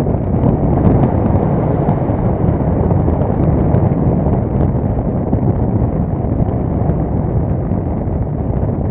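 Wind rushing over the microphone of a camera mounted on a hang glider's wing in flight: a steady, loud rush of airflow noise.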